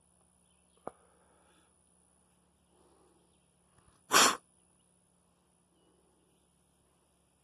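A single short, sharp sneeze about four seconds in, with a faint click about a second in.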